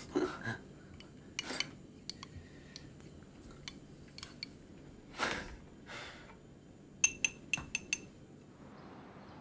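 Crockery and cutlery clinking on a kitchen counter while tea is made: scattered light taps and knocks, then a quick run of about five ringing clinks about seven seconds in.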